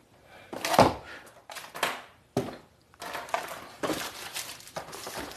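Packaging being handled and things set down on a stone countertop: a sharp knock a little under a second in and two lighter ones after it, then steady rustling and crinkling of cardboard and wrapping while a hand rummages in a box.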